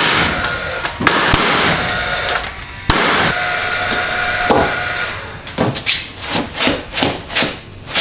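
Paslode cordless framing nailer firing nails into 2x4 lumber: sharp shots at the start, about a second in and near three seconds, each followed by a whirring hiss. In the second half comes a string of lighter knocks, about three a second.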